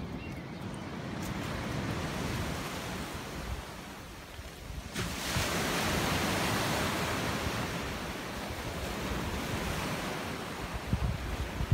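Low wind rumble on the microphone, then from about five seconds in, small waves breaking and washing up a beach in a steady rush of surf.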